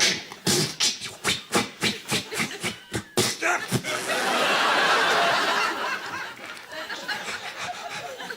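Sound effects made with the mouth into a microphone: a rapid run of about a dozen sharp percussive bursts over roughly the first three and a half seconds. A swell of audience laughter follows and then dies down.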